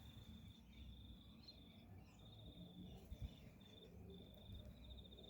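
Faint cricket trilling in broken runs of steady high chirping, with a soft low thump about three seconds in.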